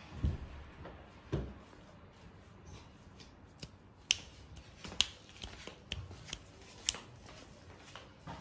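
Two dull low thuds in the first second and a half, then about five sharp clicks, each roughly half a second to a second apart, starting about four seconds in.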